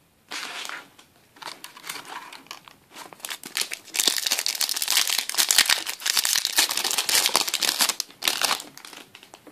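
Foil Yu-Gi-Oh booster pack wrapper crinkling in the hands as it is torn open: short rustles at first, then loud, continuous crinkling for about four seconds in the middle, dying away near the end.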